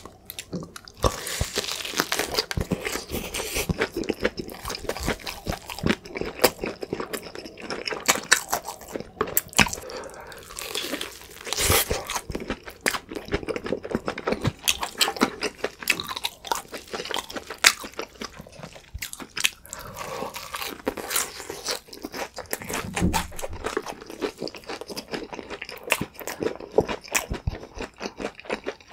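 Close-up crunching and chewing of crispy fried chicken with a powdered shrimp-and-garlic-flake coating, as bites crack through the crust. Dense, irregular crackles run throughout.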